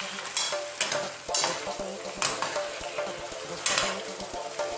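Metal spoon stirring pork and mixed vegetables in a pan of simmering pinakbet, making a few scraping strokes about a second apart over the steady hiss of the cooking pan.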